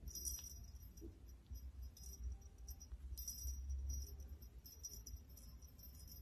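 Small bell on a dangling cat toy jingling in short bursts as a kitten swats and bites at it, the biggest jingles right at the start and about three seconds in.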